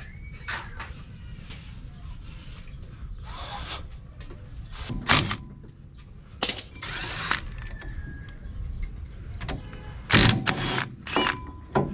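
Several short bursts of a power tool, driving in brake caliper bolts, with a few clanks between them.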